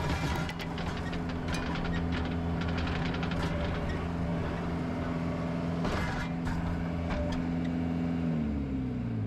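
Skid loader's engine running steadily under throttle, with scattered knocks and rattles as the bucket works the rock dust. About eight seconds in the engine revs drop.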